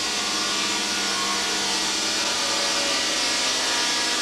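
Artificial lightning from a 1.5-million-volt spark apparatus: electric sparks arcing from a pointed electrode with a steady hissing buzz.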